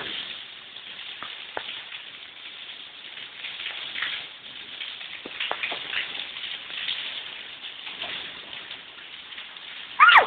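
Steady rain, with scattered louder drops landing. Just before the end there is a short, loud cry that bends in pitch.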